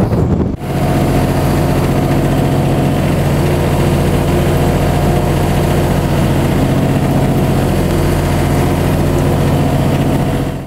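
Aircraft tug's engine running steadily while pushing an airplane into the hangar. It starts abruptly about half a second in.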